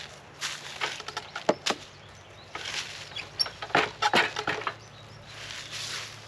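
Irregular clicks, knocks and scrapes in two short clusters, then a brief rustling hiss near the end, with no saw running.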